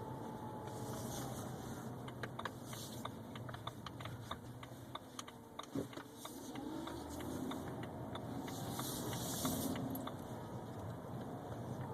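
A thin whine from a 2011 BMW 328xi over the car's low running hum. The whine drops in pitch about halfway through and then climbs back. A run of light clicks and rattles comes in the first half, with one sharper knock just before the middle.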